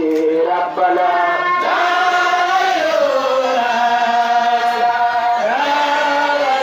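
A man chanting an Islamic devotional song into a microphone, drawing out long held notes that slide between pitches.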